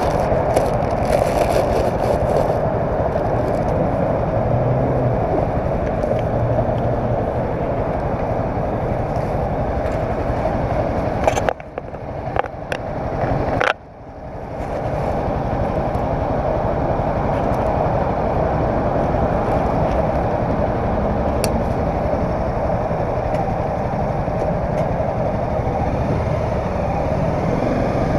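Honda CBR300R's single-cylinder engine running steadily at idle and low speed, heard through a helmet camera. The sound dips sharply for a couple of seconds about halfway, then comes back.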